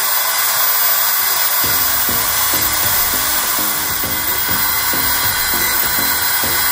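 Electric motor drive of a keyway-slotting attachment on a lathe running with a steady whir while its ram strokes the cutter through a gear bore. Background music with a steady beat comes in about a second and a half in.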